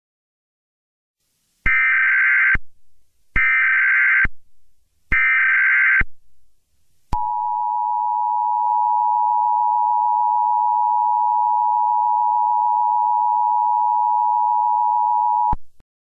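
Emergency Alert System SAME header: three bursts of buzzy digital data tones, each about a second long, with a fading echo trailing after each. It is followed by the EAS attention signal, a steady two-tone 853 and 960 Hz tone held for about eight seconds and then cut off sharply.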